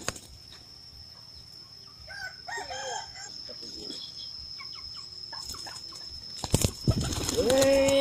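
Domestic pigeon flapping its wings in a quick flurry of beats about six and a half seconds in, followed by a loud, drawn-out, steady-pitched call near the end.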